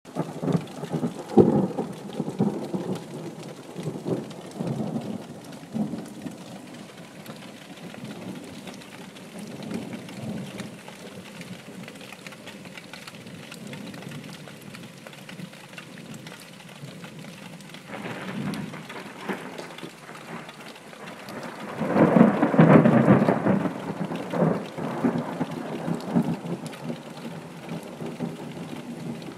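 Thunder rumbling over steady heavy rain. Rolling rumbles come in the first few seconds, then the loudest peal builds about two-thirds of the way through.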